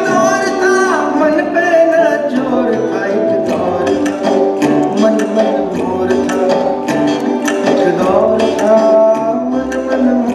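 Music from a video played over the hall's speakers: sustained melodic notes that bend in pitch, with quick hand-percussion strokes.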